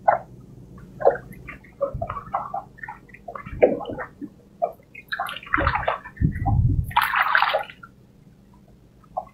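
Water splashing and sloshing around a small wooden boat as a fishing line is hauled in by hand, with short drips and splashes throughout and a louder burst of splashing a little past halfway.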